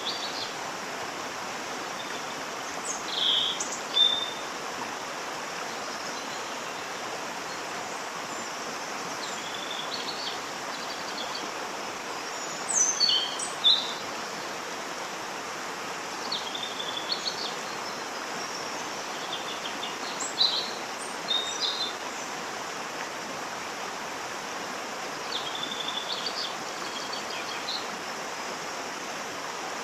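Steady, even rush of a waterfall, with birds chirping in short clusters every few seconds over it.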